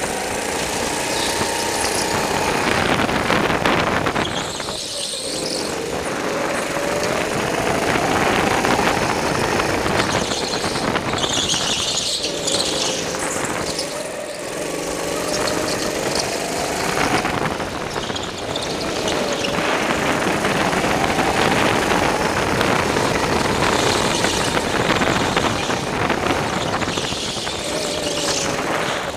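Go-kart's small engine revving up on the straights and falling off into the corners, lap after lap, with the tyres squealing through the bends.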